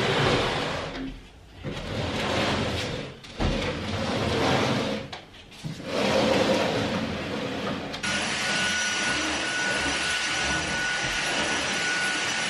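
A wooden sideboard pushed and dragged across the floor in three long scrapes with short pauses between them. About two-thirds of the way through, a stick vacuum cleaner takes over, running with a steady high whine.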